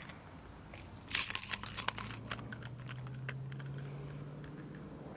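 A bunch of keys jangling close to the microphone: a quick cluster of metallic jingles starting about a second in and lasting about a second. A faint low hum rising slightly in pitch runs underneath.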